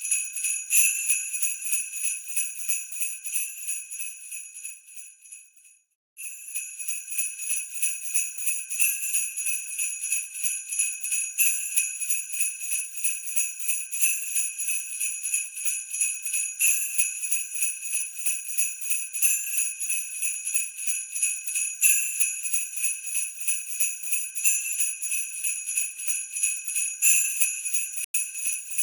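Sleigh bells shaken steadily, a rapid, even jingling. About five seconds in it fades away to a moment of silence, then starts again and carries on.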